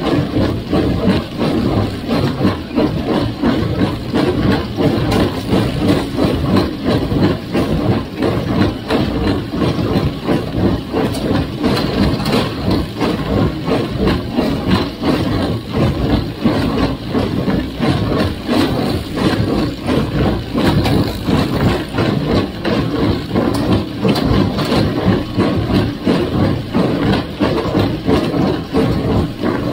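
Farmall 350's four-cylinder gas engine running steadily under load, with a busy, uneven clatter of knocks over the engine note.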